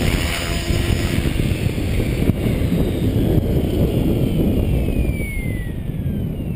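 Gaui X5 electric RC helicopter spooling down after landing: from about halfway in, the motor and rotor whine falls steadily in pitch, with another falling whine near the end. Heavy wind rumble on the microphone runs underneath.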